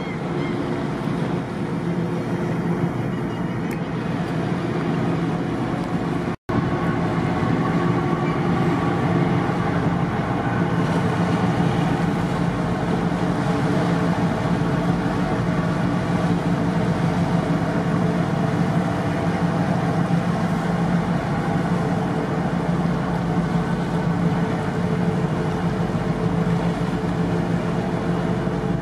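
Harbour tug's diesel engines running steadily under load while towing a ship on a line, a deep even drone with a stack of steady engine tones and propeller wash. It drops out for a split second about six seconds in.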